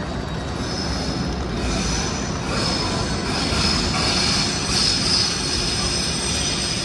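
A train's wheels squealing on the rails: a high-pitched squeal that comes in about a second in and is loudest in the middle, over a steady low rumble in the station hall.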